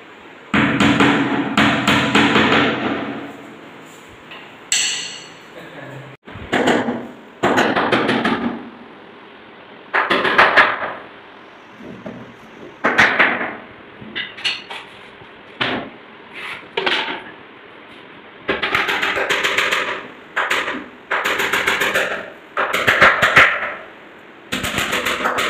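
Hammer driving nails into the edges of plywood panels to join a wardrobe box. It comes in runs of quick, sharp blows with short pauses between them.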